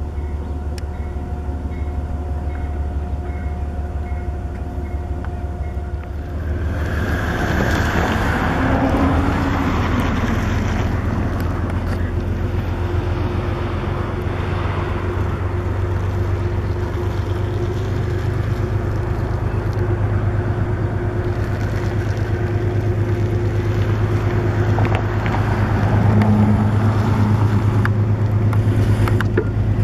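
Metro-North GE P32AC-DM diesel locomotive hauling a passenger train, its engine running with a steady low hum. The sound grows louder about six seconds in as the train draws near and then stays steady.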